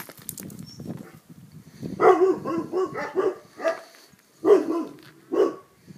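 Dogs barking: a quick run of barks about two seconds in, then two single barks about a second apart near the end.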